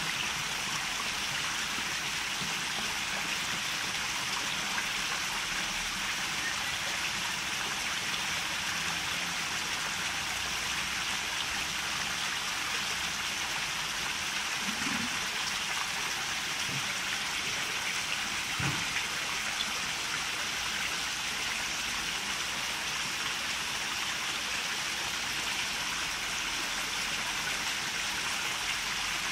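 Steady rush of water running into a koi pond.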